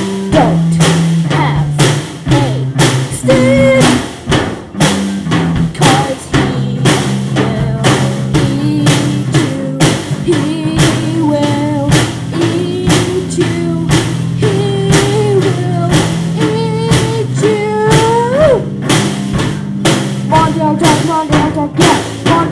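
A band playing a song: a drum kit keeping a steady beat under bass notes and a guitar line, with no words sung.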